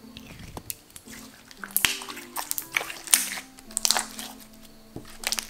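Glossy slime being pressed and kneaded by hand, giving repeated bursts of wet crackling and small bubble pops, over quiet background music.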